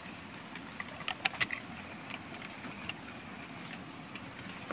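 Steady rush of flowing river water with scattered small clicks and knocks from the antique being handled and cleaned, a quick run of them about a second in.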